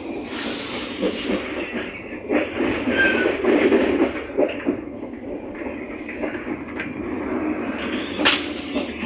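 Passenger train running, heard from inside the carriage: a steady rumble of the wheels with scattered sharp knocks from the rail joints. It gets louder about three to four seconds in, with a brief short squeal about three seconds in.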